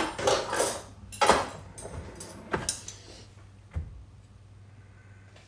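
Knocks and clatters of things being handled and set down on a kitchen counter. The loudest come at the start and about a second in, then a smaller knock and a dull thump, over a faint steady low hum.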